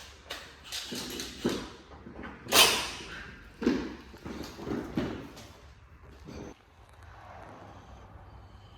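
A run of irregular knocks and clunks, about a dozen, as parts and tools are handled during engine work, the loudest about two and a half seconds in; they die away after about six seconds, leaving a low steady hum.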